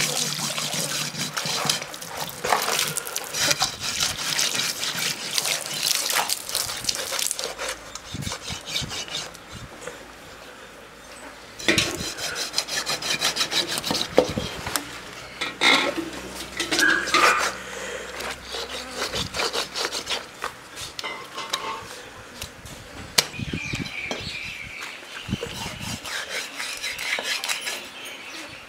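Rapid, repeated scraping and rubbing strokes, dense for the first seven seconds or so, then sparser with scattered knocks.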